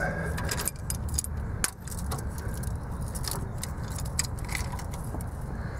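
Hand ratchet turning a bolt loose, its pawl giving scattered light metallic clicks, over a low steady rumble.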